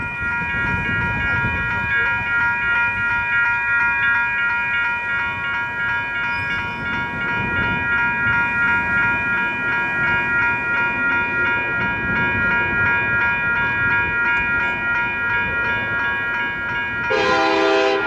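Railroad crossing warning bell ringing steadily over a low rumble. About a second before the end, a Nathan K5LLA five-chime air horn on a Union Pacific SD70ACE locomotive starts blowing a loud chord.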